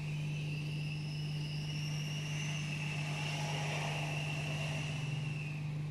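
Otis Gen2 ReGen machine-room-less traction elevator travelling down the hoistway toward the landing: a high thin whine from the machine's drive and motor, rising slightly in pitch and fading out near the end, over a steady low hum.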